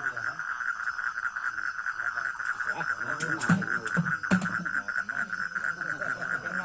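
A dense chorus of frogs calling steadily, a fast, even pulsing that does not let up.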